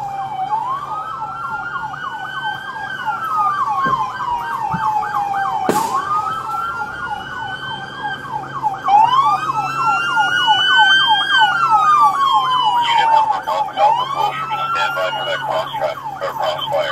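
Police car sirens sounding together. One wails in a slow rise and fall about every five and a half seconds, and a second warbles rapidly, about five times a second. Near the end the pattern turns choppier, and there is one sharp click about six seconds in.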